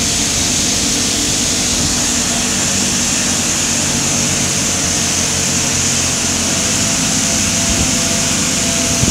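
Drilling rig machinery running steadily on the drill floor: a constant mechanical drone with several steady low hums under a hiss. One low hum grows stronger about four seconds in and eases off near the eighth second.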